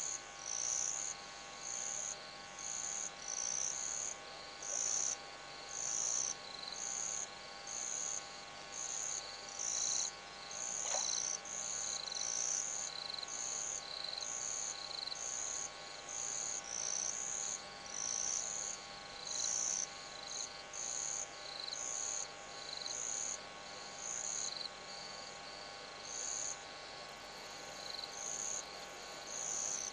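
Cricket chirping at night: a high, short chirp repeating evenly, about three every two seconds, over a faint steady hum.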